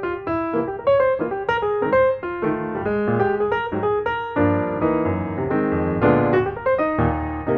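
Piano music: a run of quick single notes, moving into fuller held chords about halfway through.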